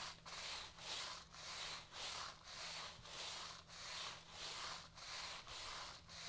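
Stiff-bristled deck brush on a pole scrubbing a wet, greasy tiled floor back and forth, faint and rhythmic at about two strokes a second. The tiles are soaked with degreaser solution, and the strokes work the loosened grease off the floor.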